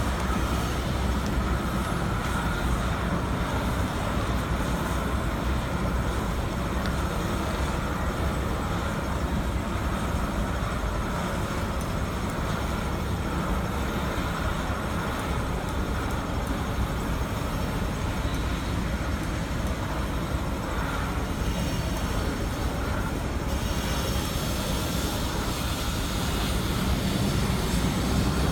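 Steady street traffic noise, a continuous low rumble, with a hiss in the upper range that grows louder about three-quarters of the way through.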